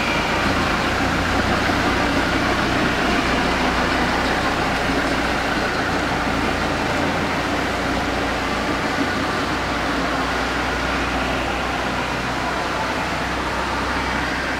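Trackless tourist train running, a steady engine hum with an even hiss that fades a little as the train pulls away.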